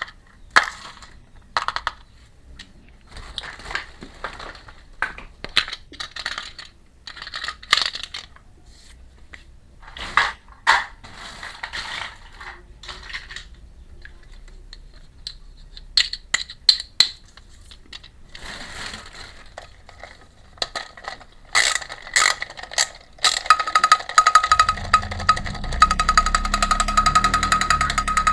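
Small plastic toy pieces and packaging being handled, with scattered clicks and rustles. About 24 seconds in, a steady, louder buzzing tone with a fast rattle sets in.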